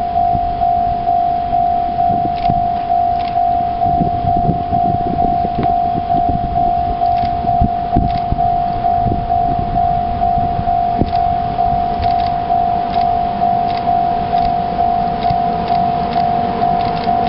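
Japanese electronic level-crossing bell ringing at a Shinkansen crossing: one steady ringing tone repeating evenly, about three strokes a second, over a low rumble.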